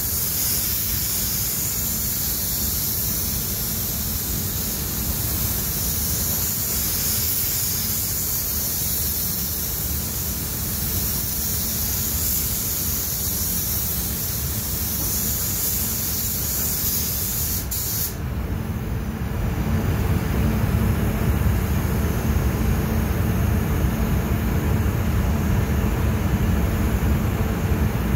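Automotive spray gun hissing as a second coat of clearcoat goes onto the car; the air cuts off suddenly about 18 seconds in. A low steady rumble from the spray booth's air system runs underneath and grows louder near the end.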